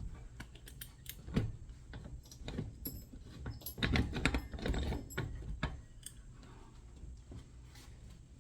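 Irregular metallic clinks, clicks and knocks of parts and hand tools being worked at a Yamaha TT-R dirt bike's rear wheel while trying to free a part stuck in a bind. They are busiest in the middle, with a few louder knocks, and thin out toward the end.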